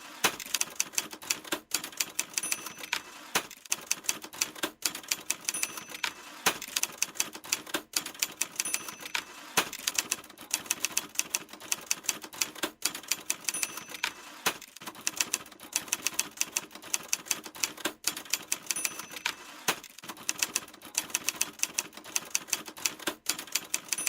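Typewriter typing fast: a dense run of key clacks, several a second, broken by short pauses every second or two.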